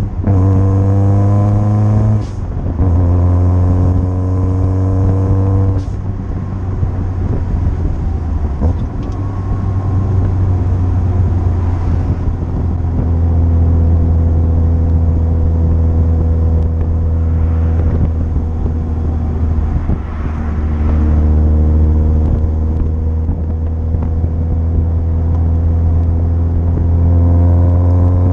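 Supercharged 1.6-litre Mazda Miata inline-four (Jackson Racing M45 supercharger) pulling through the gears, heard from inside the open-top cockpit. The engine pitch climbs and drops at gear changes at the start, about two seconds in and about six seconds in, then settles into steady cruising and climbs slowly again near the end.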